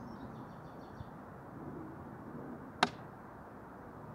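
A single sharp snap or click about three seconds in, over a steady low background rumble; a bird twitters faintly in the first second.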